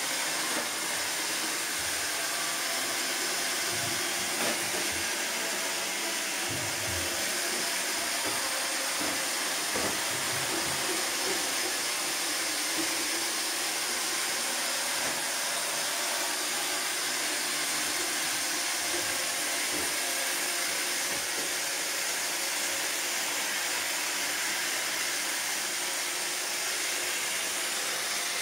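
iRobot Roomba robot vacuum running across a tiled floor: a steady whirring hiss from its vacuum motor and brushes, with a few faint low thumps.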